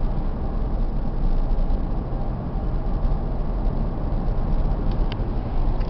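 Steady in-cabin driving noise of a Toyota Sienna V6 minivan cruising at about 35 mph: an even low rumble with a lighter hiss over it.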